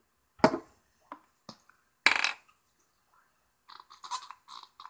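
A small plastic bottle knocked down onto a wooden desk, a few light handling clicks, and a louder rustle as a bottle is picked up. Then a pump spray bottle of superglue accelerator squirts several short hisses in quick succession onto the glued joint to set the glue.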